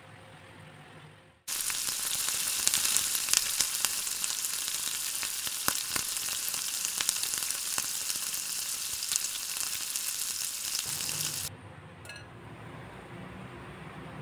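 Chunks of meat covered in red chili paste sizzling and crackling in a hot frying pan. The sizzle starts suddenly about a second and a half in and cuts off after about ten seconds.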